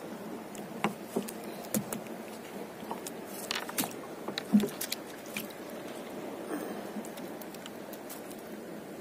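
Wet gill net hauled by hand into a small boat: water pattering and dripping off the mesh, with scattered clicks and knocks against the hull, the loudest about halfway through.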